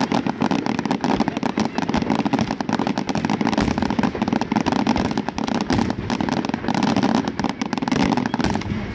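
Fireworks display: a dense, rapid barrage of cracks and bangs from many aerial shells bursting at once. It stops abruptly near the end.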